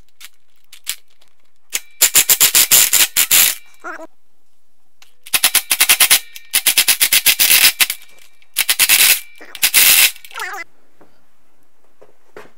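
Cordless impact driver hammering on bolts of a power wheelchair frame in several bursts of rapid rattling impacts, each lasting from under a second to a couple of seconds, with a brief falling whine after a couple of them.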